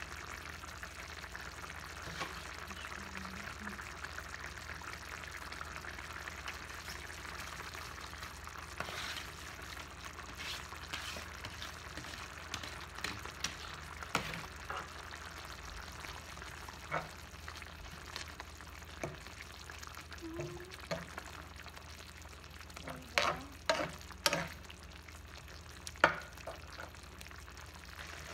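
Coconut milk sauce simmering in a frying pan with a steady sizzle. Near the end, a wooden spatula stirs it and knocks against the pan several times.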